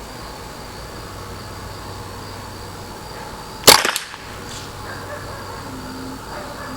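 A single shot from a Ruger 10/22 Target rifle firing .22 LR: one sharp crack a little over halfway through, with a brief echo.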